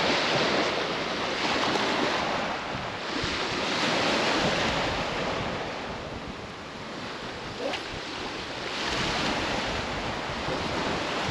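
Waves breaking on a beach: a steady wash of surf that swells and fades every few seconds, with wind buffeting the microphone.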